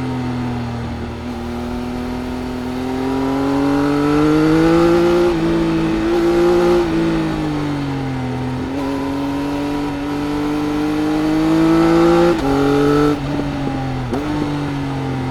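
Triumph Speed Triple RS 1050 cc inline-triple engine with its Arrow exhaust, heard from onboard under riding load. The revs climb and ease off repeatedly, with a quick gear change about five seconds in and a cluster of quick shifts and throttle blips near the end.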